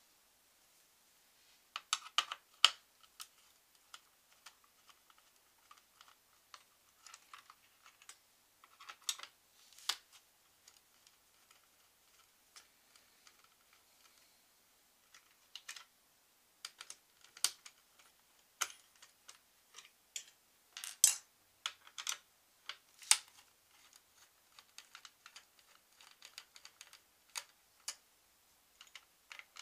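Irregular small clicks and taps of a screwdriver, screws and plastic parts as the stock CPU cooler mounting bracket is unscrewed from a motherboard. The sharpest clicks come about two seconds in and again about two-thirds of the way through.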